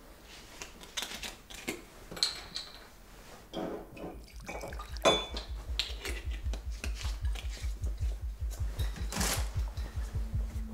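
Clinks and knocks of crockery and kitchen items being handled on a counter, the sharpest about halfway. From about halfway a fast, low pulsing music beat fades in and grows.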